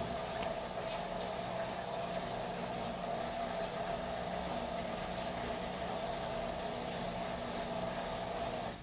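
KMC washing machine's motor running with a steady hum and a few faint clicks, cutting off near the end.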